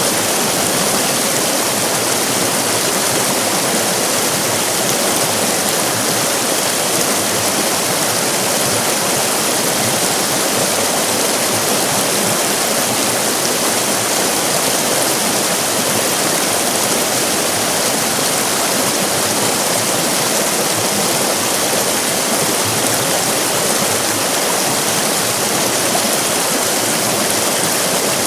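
River rapids: fast-flowing water rushing and splashing in a steady, dense, unbroken wash of noise.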